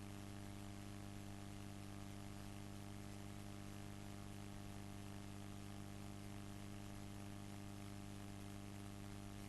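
Faint, steady electrical mains hum with a low hiss, unchanging throughout.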